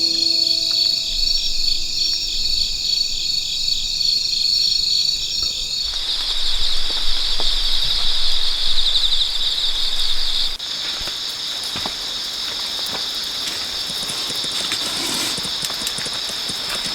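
A chorus of insects shrilling in a high, pulsing drone, changing abruptly about six and ten seconds in. Faint music trails off in the first few seconds.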